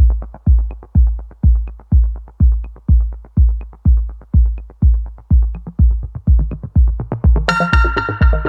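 Electronic background music: a steady kick-drum beat at about two beats a second, joined by a bright synthesizer melody near the end.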